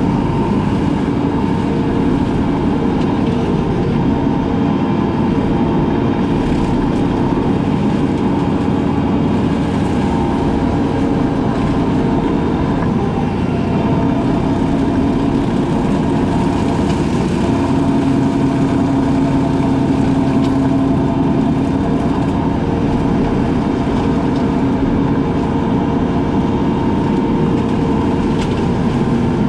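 Engine of a brush-cutting machine running steadily with a constant drone, its pitch shifting only slightly.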